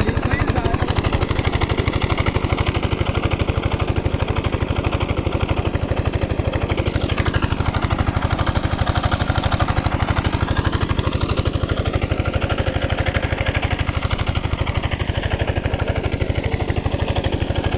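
Diesel engine of a water pumpset running steadily with a fast, even beat.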